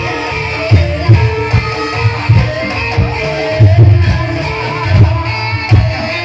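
Live gamelan music accompanying an ebeg horse dance: deep kendang drum strokes at uneven intervals under a wavering melodic line.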